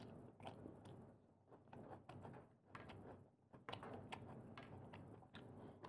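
Faint, irregular small clicks and mouth sounds of quiet eating, shellfish shells being handled and chewed, with near silence in between.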